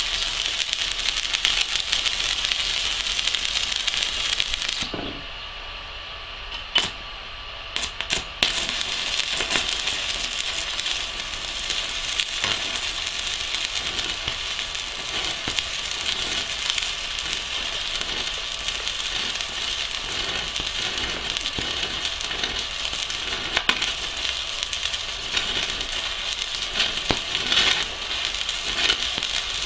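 Stick-welding arc from a Pocweld MMA 200 mini inverter, set to 160 A with a 3 mm electrode, crackling and hissing steadily. The arc goes out about five seconds in. A few sharp clicks follow, then it is struck again about three seconds later and burns on steadily.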